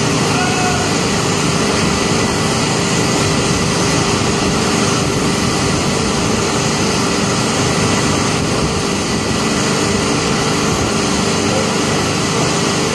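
Loud, steady drone of running engines and machinery, unbroken, with a fixed hum in it. It is the wall of machine noise set up to disorient a dog.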